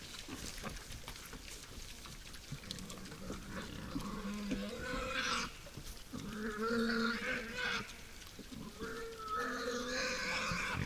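Wild boars at a feeder squealing and grunting, with three drawn-out squealing calls about 4, 6 and 9 seconds in over low rustling.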